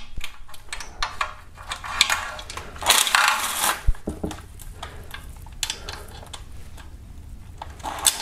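Irregular metallic clicks and clinks of a cordless power tool and 10 mm socket working on the oil pan bolts of a Hyundai/Kia 2.4 GDI engine, with a short rattling burst about three seconds in.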